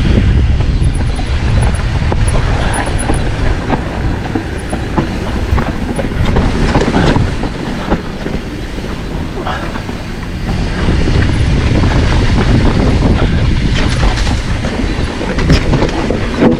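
Full-suspension mountain bike riding a dirt trail, heard from a camera mounted on the rider or bike. A continuous loud rumble of tyres and wind, with frequent sharp rattles and knocks from the bike over bumps.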